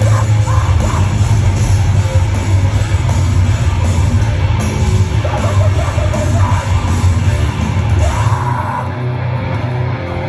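Heavy band playing live, loud and bass-heavy, with distorted guitars and drums under yelled vocals. Near the end the low end briefly drops back.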